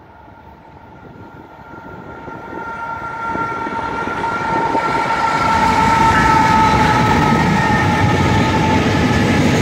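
A train approaching and passing close, growing steadily louder over the first six seconds and then holding, with a steady high-pitched tone held above the rumble of the wheels.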